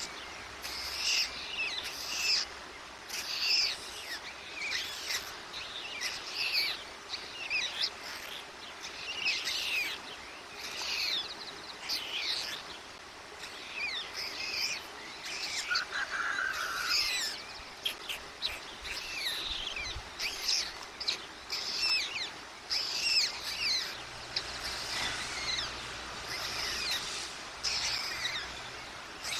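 Small songbirds chirping and singing, a steady run of short, high, quick chirps one after another with brief pauses.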